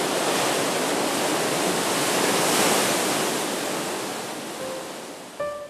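Ocean surf breaking on a rocky shore, swelling to a peak about halfway and then fading away. A few notes of music come in near the end.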